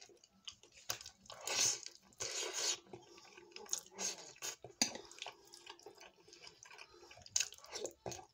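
Close-up eating sounds: wet chewing of soft food (mashed potato and fish) with lip smacks and small mouth clicks, plus two short louder hissy sounds in the first three seconds.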